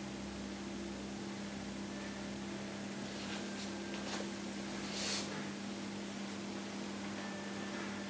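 Steady electrical hum with a background hiss, and a few soft brushing swishes about three, four and five seconds in as the massage hands move over oiled skin.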